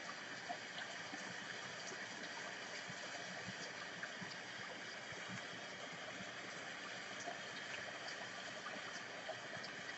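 Faint steady hiss of room tone, with a few soft ticks from tarot cards being handled on a table.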